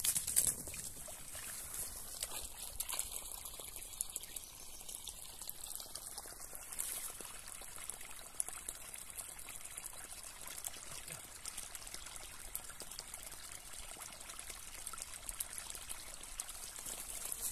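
Water pouring steadily from the end of a hose into a muddy puddle, splashing on the water's surface.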